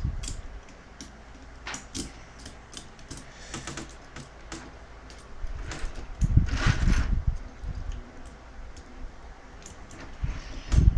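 Die-cast and plastic parts of a Bandai GX-31V Voltes V robot toy clicking and knocking as they are handled and fitted together, with a louder stretch of handling noise about six seconds in.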